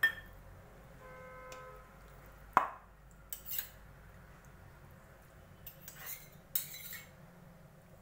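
A steel spoon clinking against a stainless steel bowl and a small steel cup while lemon juice is spooned over raw chicken pieces, with a sharp clink at the start and a louder one about two and a half seconds in. Softer handling sounds follow as the chicken pieces are turned in the bowl.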